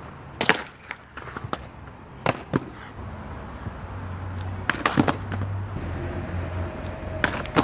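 Aggressive inline skates on concrete: a few sharp clacks of skate wheels and frames hitting the ground, then a low rolling rumble of the wheels for a couple of seconds, with more clacks about five seconds in and near the end.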